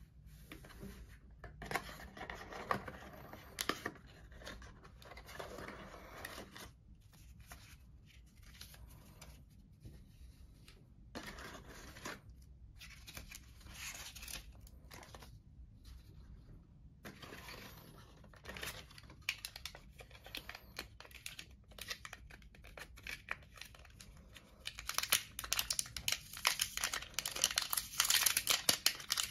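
Paper and cardboard rustling and scraping as the tablet box's inserts are handled and a paper leaflet is leafed through, with short pauses. Near the end it turns to louder, denser crinkling as the plastic-wrapped charging cable is handled.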